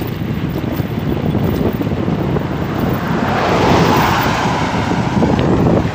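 Wind rushing over the microphone of a bicycle coasting fast downhill, with the tyres rumbling over cracked, broken asphalt. About halfway through a louder rushing swell rises and fades as a vehicle passes close by.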